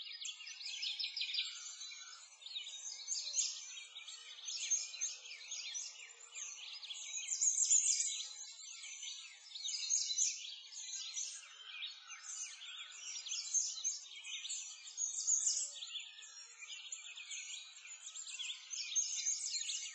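A dense chorus of many small songbirds chirping and trilling, all high-pitched, swelling and easing but never stopping.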